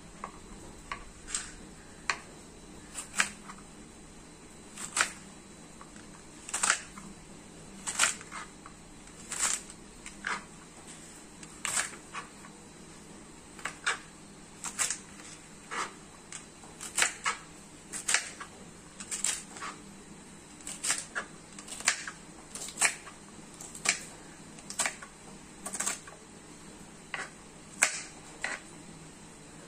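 Fresh okra pods being pressed and snapped by hand, one after another, each giving a sharp crisp snap, irregularly about once a second. A clean snap is the sign of a tender pod good for cooking; an over-mature one bends without breaking.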